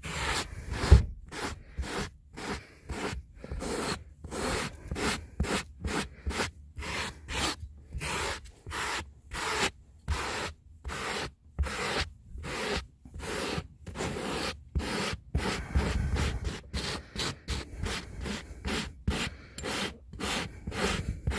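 Speedy Stone pet-hair removal stone rubbed back and forth over fabric car-seat upholstery in quick rasping strokes, about two a second, to pull up embedded dog hair. One louder knock about a second in.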